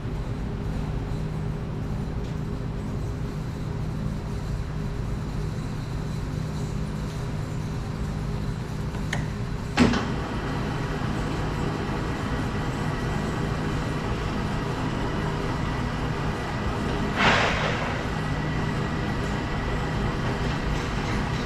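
Wellsaw 1316 metal-cutting band saw, with a three-phase motor, running idle with a steady hum. There is a single sharp clank about ten seconds in and a short noisy burst about seventeen seconds in.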